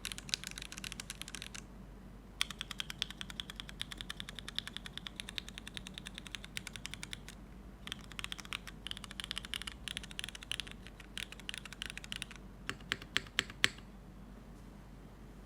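Typing on a Neo75 CU mechanical keyboard with unlubed Cherry MX2A Black linear switches, a carbon fiber plate, gasket mount, no foam and GMK keycaps. Fast runs of keystrokes are broken by short pauses. A handful of louder single key presses come near the end, and then the typing stops.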